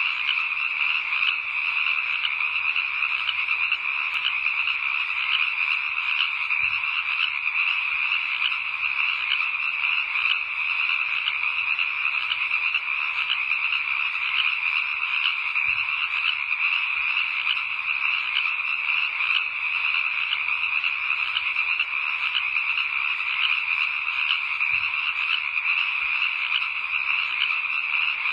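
A dense, unbroken chorus of many frogs calling, an even, rapidly pulsing wash of calls with no pauses.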